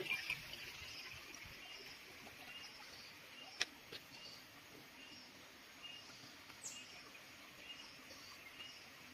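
Quiet garden ambience with a small creature's short, high chirps repeating steadily, about two a second. A single sharp click comes about three and a half seconds in, and a brief high squeak slides down just before seven seconds.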